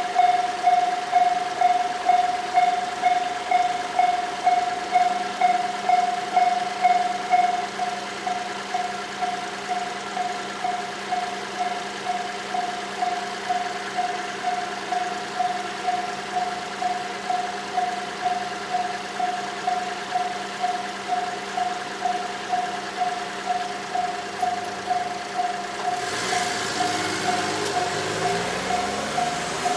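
Japanese level-crossing alarm sounding a steady electronic ding a little more than twice a second; it becomes quieter about seven seconds in. About four seconds before the end, a train starts to pass over the crossing, its rushing rail noise mixing with the alarm.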